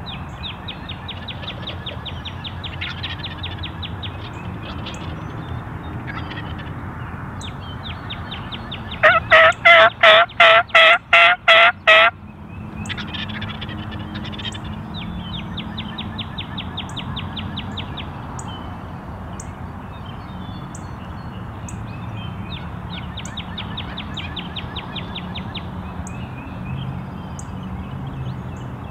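Turkey yelping: a loud series of about nine yelps, roughly three a second, a little past a third of the way in. Fainter fast, high trills come and go around it.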